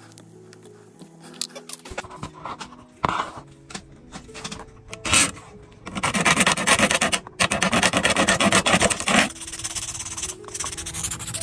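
Background music of held notes, with rubbing and rasping from handwork on the lure body, loudest and fastest from about six to nine seconds in.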